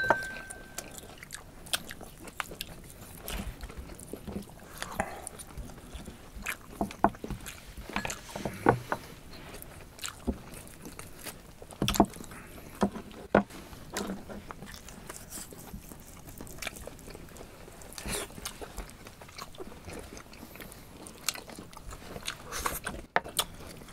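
Close-miked eating of horhog: meat being torn from the bones and chewed, with scattered sharp clicks and knocks of bones, a knife and fingers on a wooden board.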